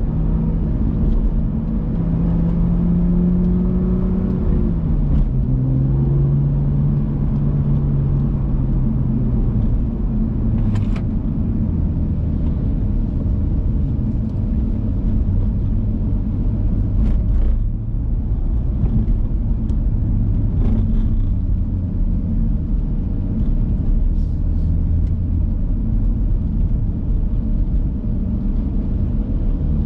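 BMW M2's turbocharged straight-six running under way, its note holding, stepping down and rising again as the car drives, over a steady low rumble of tyre and road noise. A few brief clicks sound along the way.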